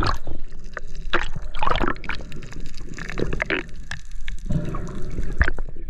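Underwater sound picked up inside an action camera's waterproof housing as a freediver swims: bubbles and rushing water, broken by irregular pops and clicks.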